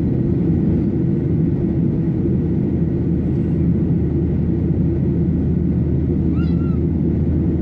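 Steady cabin roar of a Boeing 737-800's CFM56-7B turbofan engines and airflow, heard from a window seat over the wing as the jet climbs out.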